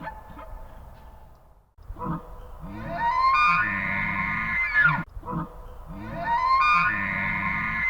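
Background music fades out, then an animal gives a long call that rises in pitch and holds, twice in a row, the two calls nearly identical.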